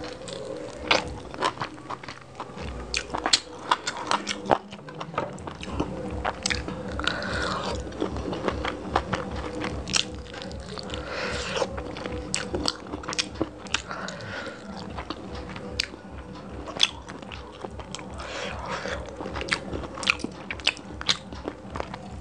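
Close-miked chewing and wet mouth smacks of a person eating curry and rice by hand, with many sharp clicks. Curry-coated fingers squish as they mix rice and gravy on the plate.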